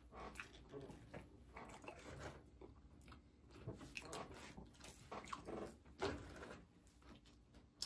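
People eating close to the microphone: soft, irregular chewing and biting sounds, with a brief sharp click near the end.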